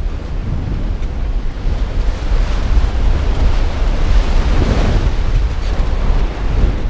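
Waves rushing and splashing along the hull of a Contessa 35 sailing yacht driven hard by strong wind, with wind buffeting the microphone in a heavy rumble. The rush of water builds to a surge about four to five seconds in.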